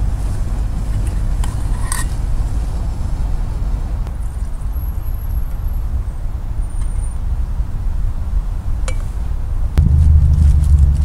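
Steady low rumble of nearby road traffic, growing louder about ten seconds in, with a few light metallic clinks of camping cookware being handled.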